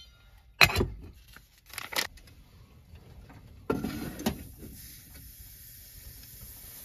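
A metal saucepan is handled with a couple of sharp knocks, then set down on a camp stove burner with a clunk about four seconds in, after which a steady hiss runs on.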